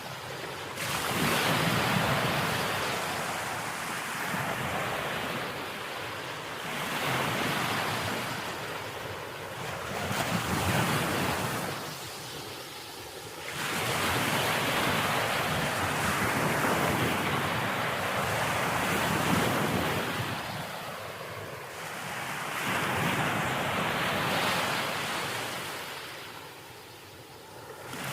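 Sea waves breaking and washing up the shore in slow surges, each swell of hiss rising and falling over a few seconds, with a brief lull between sets.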